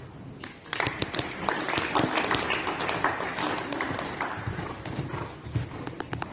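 Horse's hoofbeats at a canter on sand arena footing, a quick run of strikes that grows loud about a second in as the horse comes close and tails off toward the end as it moves away.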